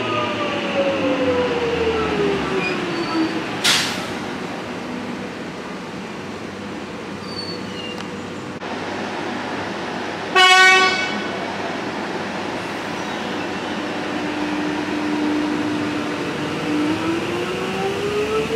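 X'Trapolis 100 electric train's traction motors whining down in pitch as it brakes to a stop, then a short hiss of air. About ten seconds in, one short loud horn toot, and near the end the motor whine rising again as the train pulls away.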